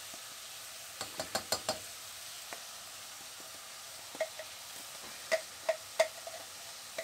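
Lamb mince quietly sizzling as it browns in a pan, with light clicks from a shaker of lamb seasoning being shaken over it: a quick run of about five about a second in, then a few single ones in the second half.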